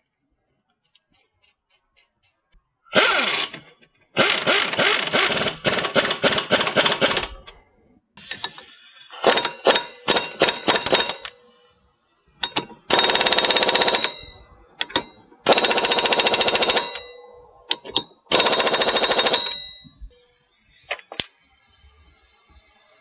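Pneumatic impact wrench hammering a castle nut tight onto the rear CV axle of a 1999 Arctic Cat 300 4x4 ATV, in about six bursts, some short and stuttering, the first about three seconds in and the last ending about twenty seconds in.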